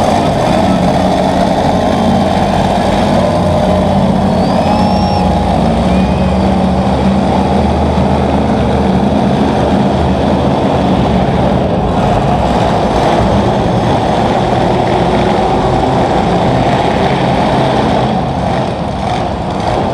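Monster truck engine running loud and fairly steady as the truck drives across the dirt track.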